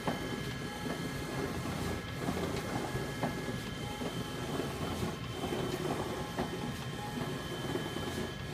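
Large-format printer running as it prints a vinyl banner: a steady mechanical whirr with a faint high whine and a few scattered clicks.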